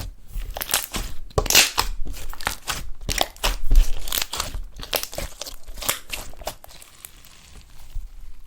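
Slime being squished and stretched by hand, giving a dense run of sticky crackles and little pops, loudest in the first half.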